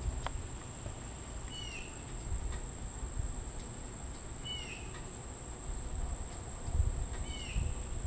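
An unbroken, high-pitched monotone drone from an unidentified insect. A bird gives a short, curved chirp three times, about three seconds apart, and wind rumbles on the microphone.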